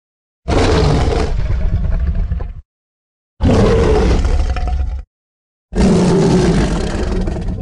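Tiger roaring: three separate roars of about two seconds each, each starting and stopping abruptly, with a short silence between them.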